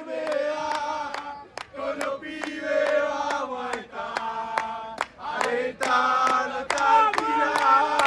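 A group of men sing a football terrace chant in unison, with a bass drum (bombo) and handclaps beating a steady time about twice a second.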